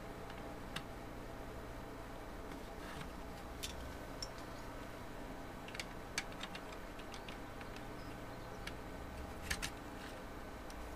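Light clicks and taps of hard plastic parts being fitted together by hand, the yellow base plates of a robotic arm kit set onto its plastic base, scattered irregularly with a sharper double click near the end. A faint steady hum runs underneath.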